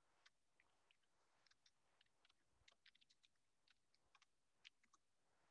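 Very faint computer keyboard typing: a dozen or so soft, irregularly spaced key clicks over near silence.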